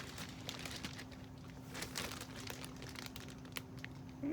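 Faint handling noise: light rustling and small scattered clicks as plastic doll bodies are picked up and held side by side, over a faint steady low hum.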